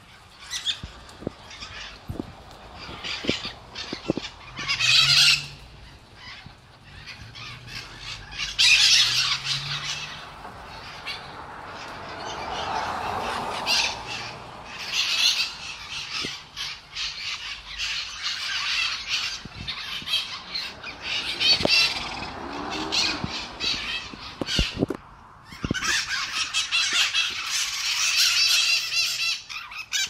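A flock of mitred parrots squawking: repeated harsh, screechy calls in bouts, loudest about five and nine seconds in and again through the last few seconds.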